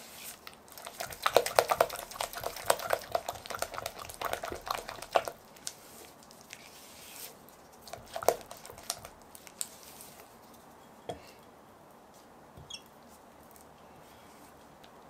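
Silicone spatula stirring thick chocolate madeleine batter in a glass bowl: a quick run of wet scraping and clicks against the glass over the first few seconds. After that the stirring gives only a few light knocks.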